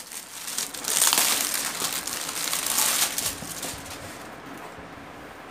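Clear plastic cover crinkling as it is pulled off a cardboard parcel box, loudest for the first three seconds, then dying down to light handling of the box.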